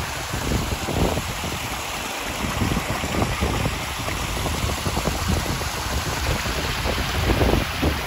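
Water from a landscape rock waterfall splashing steadily over boulders into a pool, with wind buffeting the microphone in irregular low gusts.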